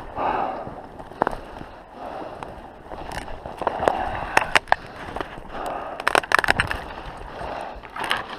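Footsteps sloshing through slush and meltwater on flooded lake ice, a wet squelch every second or so, with several sharp cracks and snaps in between.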